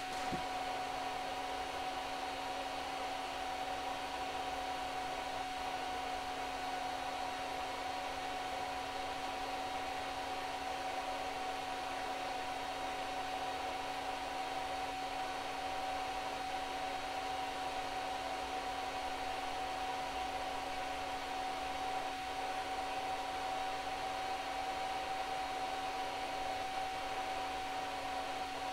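A small electric cooling fan whirring steadily, with a steady mid-pitched whine and a lower hum over an even hiss.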